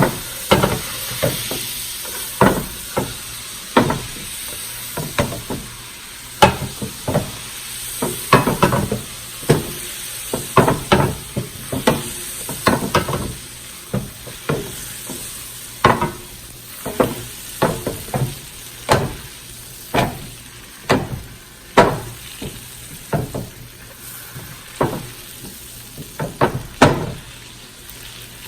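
Butter melting in a hot pan: a steady sizzle broken by frequent sharp pops and crackles, about one or two a second.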